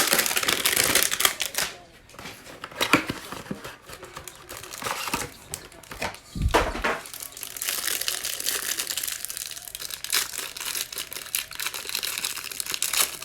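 Plastic wrapping of a trading-card pack being torn open and crinkled by hand, with a low thump about six seconds in.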